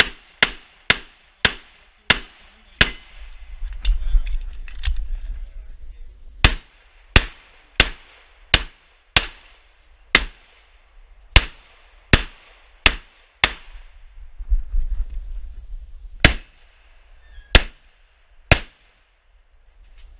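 Pistol shots, about twenty, fired in quick strings roughly half a second to a second apart. There are two pauses, around four and fifteen seconds in, filled by a low rumble.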